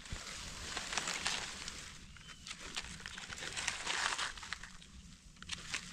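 Dry fallen leaves and grass rustling and crackling as gloved hands pull a mushroom from the leaf litter, with small sharp snaps and clicks; it is louder about a second in and again around four seconds in.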